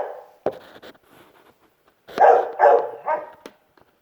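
A dog barking: one bark right at the start, then three quick barks a little past halfway. There is a sharp click about half a second in.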